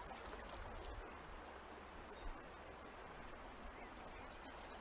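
Shallow stream running over stones, a steady faint wash of water, with a soft knock about two seconds in.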